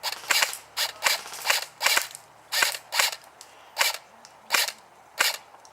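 Airsoft guns firing a string of single shots, about a dozen sharp pops, close together at first and then slowing to roughly one every half second or more.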